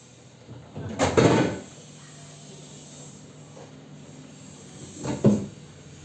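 Two short knocks and clatters of household objects being handled, about four seconds apart; the first lasts a little longer.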